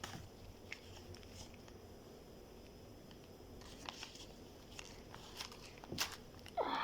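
Faint handling of a taped paper surprise bag: scattered small clicks and short crinkling rustles as the tape and packaging are picked at, with a sharper snap about six seconds in.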